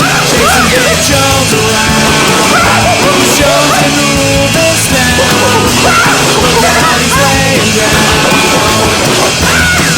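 Loud punk-rock music with a lead line that bends up and down in pitch over a steady, stepping bass line.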